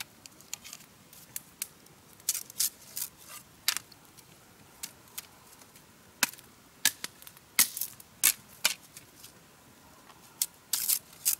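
Machete blade striking and splitting green bamboo stalks: a string of sharp knocks and cracks at irregular spacing, with a quick cluster near the end.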